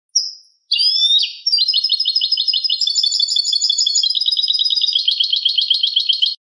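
European goldfinch singing its clean song: a short high note, a sliding call, then a long, fast trill of rapidly repeated notes that stops abruptly near the end.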